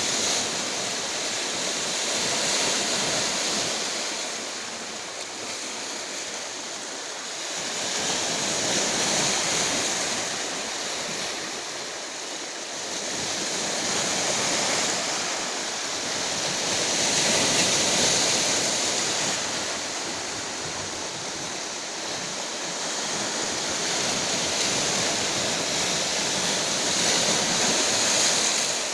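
Rough sea surf breaking on the shore: a continuous rush of water that swells and eases every several seconds as waves come in.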